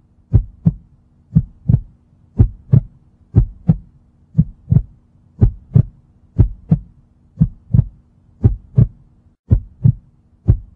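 Heartbeat sound effect: pairs of low thumps, lub-dub, about once a second, over a faint steady hum.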